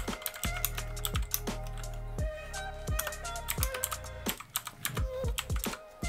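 Hiwings HI200 mechanical keyboard with clicky Outemu Blue switches, typed on in an uneven run of sharp keystroke clicks over background music.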